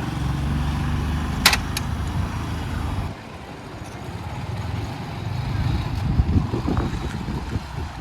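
A motor vehicle's engine running close by, with a sharp click about a second and a half in; after about three seconds it gives way to a quieter, uneven rumble of traffic.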